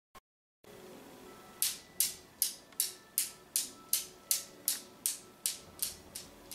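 Steel balls of a Newton's cradle clacking in an even rhythm, a little under three clicks a second, each with a short metallic ring. The clicks start about a second and a half in, set swinging by a cat's paw, and slowly fade as the swing dies down.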